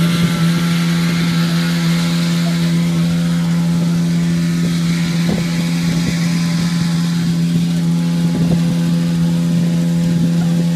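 Honda CT110 postie bike's small single-cylinder four-stroke engine running at a steady, unchanging speed, driving the roller chain that turns the rotisserie spit.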